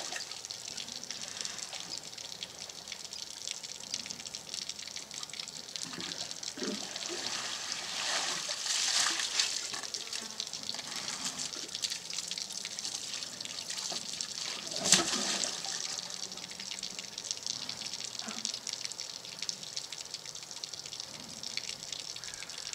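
Steady rush of running water, swelling louder about eight to ten seconds in, with a single sharp thump about fifteen seconds in.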